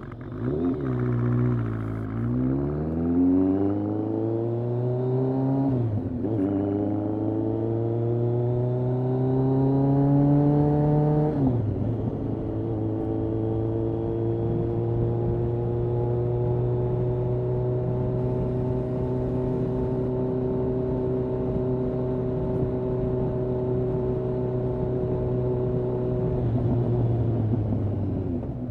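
Kawasaki ZRX1200R's inline-four engine, breathing through Yoshimura TMR-MJN carburettors, on the move: it slows briefly, then pulls up through the gears with shifts about six and about eleven seconds in, holds a steady cruise, and drops as the throttle closes near the end.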